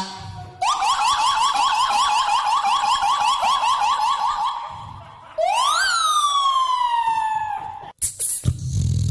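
Police-style siren sound: a fast yelp of about five rising sweeps a second for some four seconds, then a single wail that climbs quickly and falls away slowly. Near the end it cuts off and a low engine-like rumble begins.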